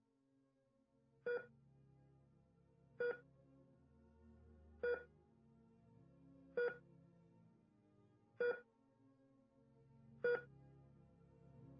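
Short electronic beep repeating evenly about every 1.8 seconds, six times, over a quiet low ambient music drone.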